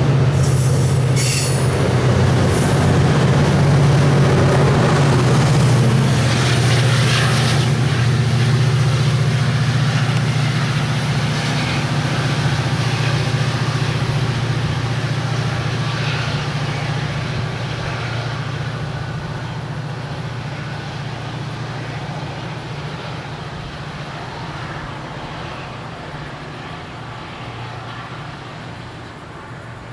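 A MARC commuter train of double-deck cars departing, with the low steady drone of its MP36PH-3C diesel locomotive and the rumble of wheels on rail. A few sharp clicks and squeaks come from the wheels in the first several seconds. It fades steadily as the train moves away.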